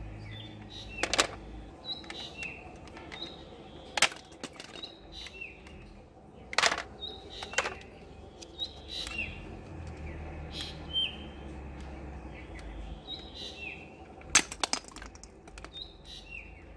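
A handful of sharp plastic clicks and knocks at irregular intervals from a spring-loaded toy gun firing and balls being knocked off their stands. Birds chirp in the background throughout, with short falling calls.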